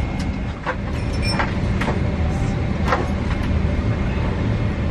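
Steady low rumble inside a Boeing 777-300ER cabin on the ground, with a few light clicks and knocks between about one and three seconds in.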